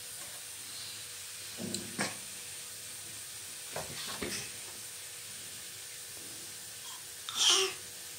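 Steady low hiss with a few short, soft knocks and rustles, the loudest one near the end.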